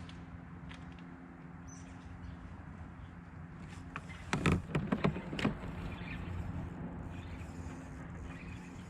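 A quick cluster of knocks and rattles, gear handled against a fishing kayak, about halfway through, over a steady low hum.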